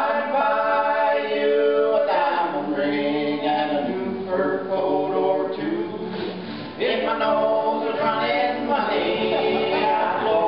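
Two men singing a comic song together, their voices loudest, with acoustic guitars held and played along. The singing breaks briefly about two-thirds of the way through and picks up again with a new line.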